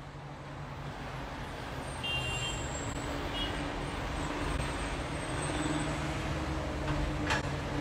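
Steady rumbling noise with a low hum, fading in over the first two seconds and then holding level. A single short click comes near the end.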